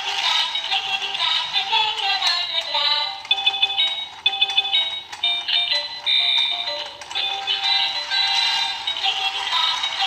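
Tinny electronic children's tune with synthetic singing, played through the small built-in speaker of a Happy Dog stair-climbing race track toy; it has no bass, and a stretch of bright beeping notes comes in the middle.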